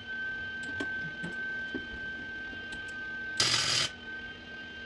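A short arc-welding tack on the new steel patch along the bottom of a Jeep door: a half-second burst of welding about three and a half seconds in. A steady high whine runs underneath, with a few light clicks.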